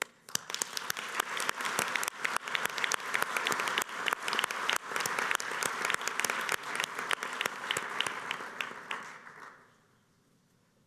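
Audience applauding, many hands clapping together, fading away about a second before the end.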